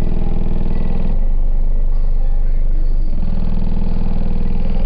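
Single 24-inch Sundown Nightshade subwoofer in a ported box tuned to about 23 Hz, playing bass-heavy music at high volume. The bass comes in two long, loud pushes: the first ends about a second in, and the second starts a little past three seconds and runs on.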